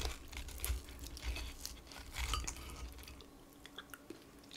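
Close-miked eating sounds: crispy fried chicken crackling as its skin and coating are torn off by hand, with chewing. Many small crunchy clicks, thinning out after about three seconds.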